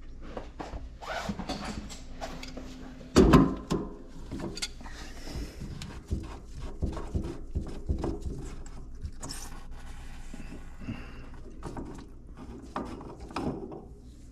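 Scattered knocks, clicks and clatter of objects being handled and moved, with one louder thump about three seconds in.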